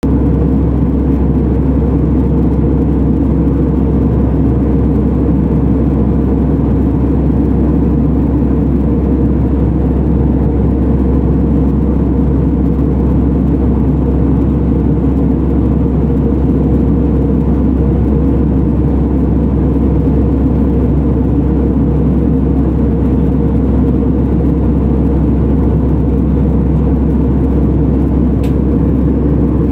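Jet airliner cabin noise in cruise: the steady, low, even rush of the engines and airflow heard inside the cabin by the window.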